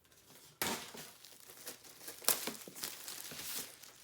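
Cardboard-and-paper box packaging being torn and crinkled by hand, as a failed pull tab is worked at to get the box open. A burst of tearing and crinkling starts about half a second in and goes on with uneven crackles.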